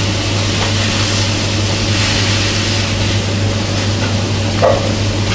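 Iberico black pork sizzling on a teppanyaki iron griddle as it is turned with metal spatulas: a steady frying hiss over a low hum.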